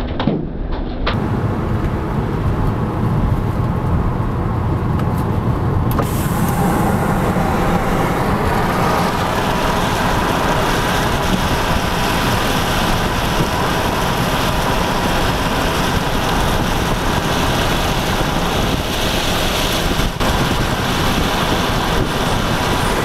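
A car driving in a storm, heard from inside: steady road and wind noise that grows louder and hissier about six seconds in.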